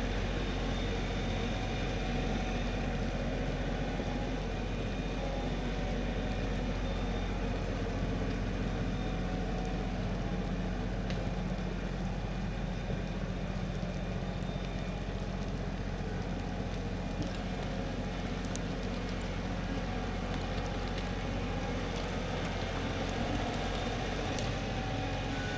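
Tractor engine running at a steady speed, with no revving.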